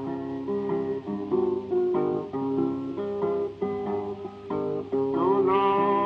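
Background music: a fingerpicked acoustic blues guitar break, with no singing.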